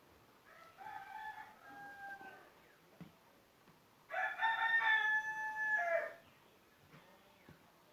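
A rooster crows twice, the second crow louder than the first.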